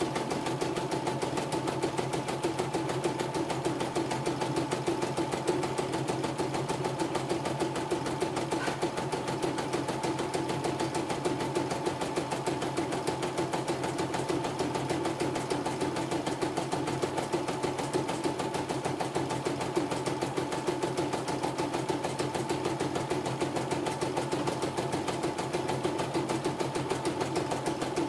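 CNY E960 computerised embroidery machine stitching a design, its needle bar and hoop drive keeping up a fast, even, unbroken rhythm. This is the test stitch-out after repair of its jammed drive, and it runs smoothly with no thread breaks.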